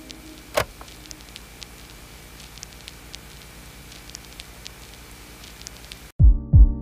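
Faint noise of a ride in an open-sided passenger vehicle: a steady hiss with scattered light clicks and crackles, and one sharper click about half a second in. Background keyboard music with a steady beat comes in near the end.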